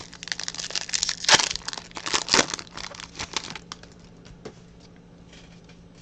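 Foil wrapper of a trading card pack crinkling and tearing as it is opened, a dense crackle over about three and a half seconds, followed by a few light clicks of handling.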